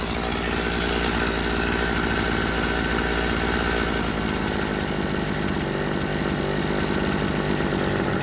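Old Craftsman two-stroke chainsaw engine running steadily after its leaking carburettor adapter was fixed, its note shifting slightly about four seconds in.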